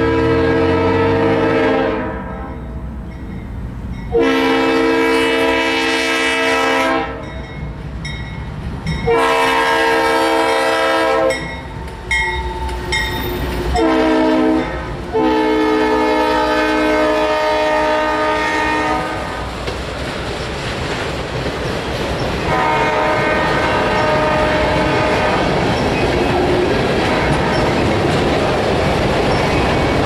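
Norfolk Southern freight locomotive's air horn sounding a series of long and short blasts as the train approaches and passes. Under and after the blasts comes the rumble and clickety-clack of freight cars rolling by, with the horn heard more faintly near the end.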